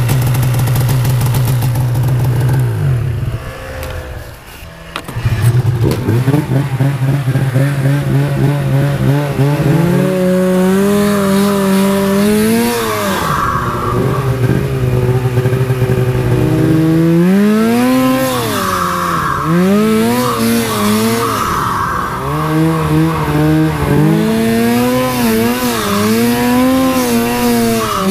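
Turbocharged Polaris Pro RMK 800 two-stroke snowmobile engine running. It holds a steady note at first and dips quieter around four seconds in, then from about ten seconds revs up and down again and again under throttle through deep powder.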